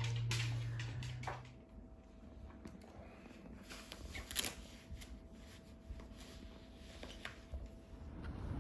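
Quiet room with scattered light clicks and taps as board-game cards and pieces are handled on a table, one sharper tap in the middle. A low steady hum runs for the first second and a half, then stops.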